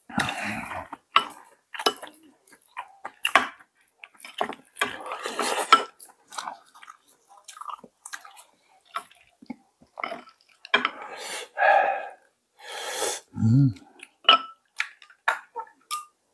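Close-up eating of jjageuli stew: chewing and slurping broth, with utensils clicking against the bowl many times, and a brief low hum near the end.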